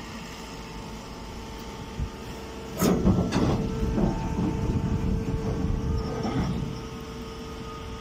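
Hydraulic hay baler running with a steady machine hum. About three seconds in, a louder stretch of irregular knocking and crackling starts as the machine works the hay, and it eases off about four seconds later.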